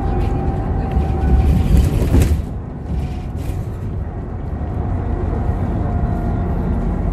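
Engine and road noise heard inside a moving city bus: a steady low rumble that swells louder for a moment about two seconds in, then eases.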